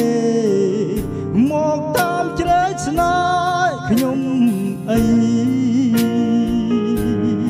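A man singing a slow song into a handheld microphone over a backing track, both amplified through the MY 602 powered mixer. The melody is drawn out in long, gliding notes over sustained chords and a steady beat of about one stroke a second.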